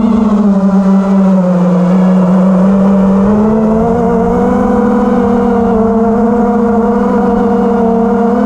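Wizard FPV quadcopter's brushless motors and propellers whining in flight, heard through its onboard camera: a steady buzzing tone that dips in pitch about a second in and rises a little past three seconds in, with wind rumbling on the microphone.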